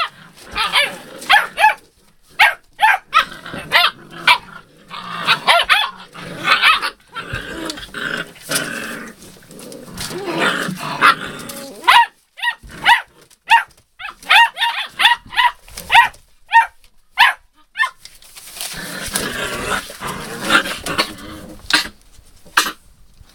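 Hound puppies play-fighting: short high yips and barks in quick flurries, mixed with low play growls. Their paws scuffle on newspaper.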